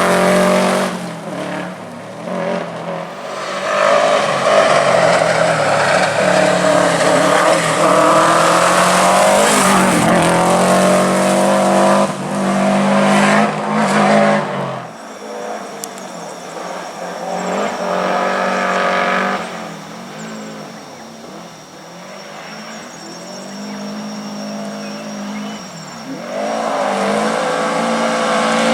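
Subaru WRX rally car's turbocharged flat-four engine at full throttle on a stage, its pitch climbing and falling with each gear change and lift. About halfway through the sound drops sharply and stays quieter with lighter revving, then comes back loud near the end.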